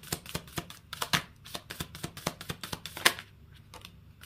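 A tarot deck being shuffled by hand: a quick run of card slaps and clicks that stops about three seconds in.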